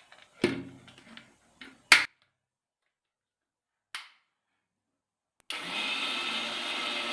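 A few knocks and sharp clicks, then about two-thirds of the way in an electric kitchen mixer-grinder switches on and runs steadily, grinding rice with a little water into idli batter.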